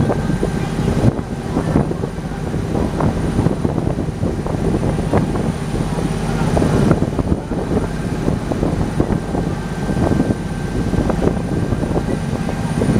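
River boat's engine running steadily with a low drone, with water splashing and rushing along the hull as the boat moves.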